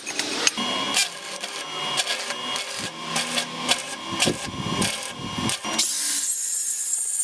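Knocks and scrapes of galvanized steel square tubing being handled. About six seconds in, an 18-volt Makita brushless cordless angle grinder starts grinding a weld on the frame with a steady, high-pitched whine.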